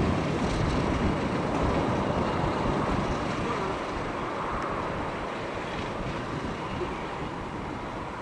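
Class 50 diesel locomotive's English Electric 16-cylinder engine running as it hauls a train of coaches away, slowly getting quieter.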